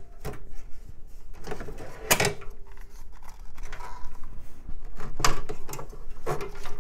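Power supply screws being backed out of a steel computer case with a screwdriver, with several sharp clicks and knocks of metal parts.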